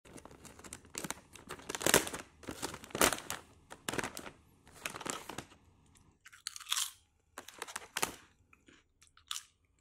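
Potato crisps crunching and rattling in a foil-lined Pringles-style tube as fingers reach in and grab them. A run of sharp, irregular crunches gives way to lighter, higher crinkling after about six seconds.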